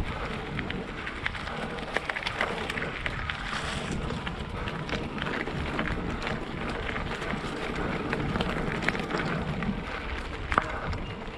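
Steady rush of wind on the microphone during a ride, with small clicks and knocks scattered through it and a sharper click near the end.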